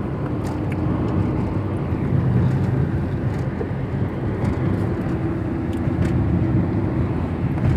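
Inside a moving car's cabin: steady low road and engine rumble from the car being driven, with a faint steady hum.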